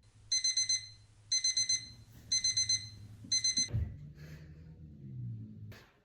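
Electronic alarm clock beeping: four bursts of about four quick high beeps each, one burst a second. The beeping stops a little under four seconds in, followed by a low hum.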